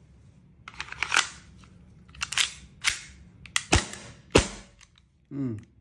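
VFC-made Sig Sauer P226 MK25 gas blowback airsoft pistol: handling clicks as the magazine goes in and the gun is readied, then two shots about two-thirds of a second apart, each a sharp crack. Its report is not as crisp as a Glock's.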